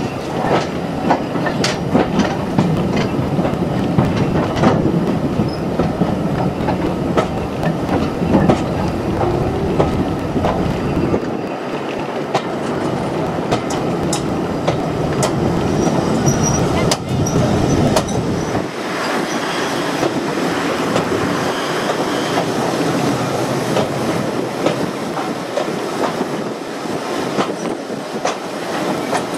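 Passenger carriage of a train running on jointed track, heard close from an open window: a steady rumble with repeated clickety-clack of the wheels over rail joints. A few brief high wheel squeaks come around the middle.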